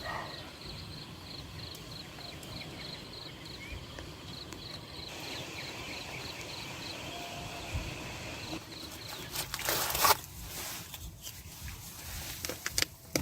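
An insect chirping in a steady high pulse, a couple of times a second, over a constant forest background; the chirping stops about a third of the way in. About three-quarters in comes a loud rustle, then several knocks and movement sounds.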